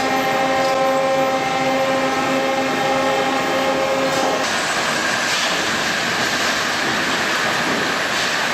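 Heavy machinery running: a steady pitched hum for about four seconds, then a loud rushing noise with a faint high whine.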